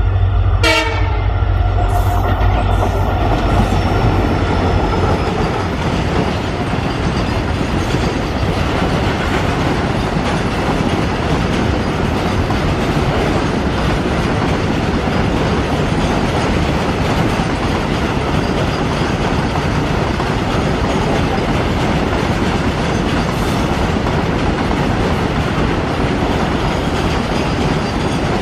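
EMD WDG4 diesel locomotive passing with a deep engine hum, while a train horn sounds briefly in the first few seconds. The engine fades, and a long string of flat wagons loaded with trucks rolls by with a steady rumble and wheel clatter over the rail joints.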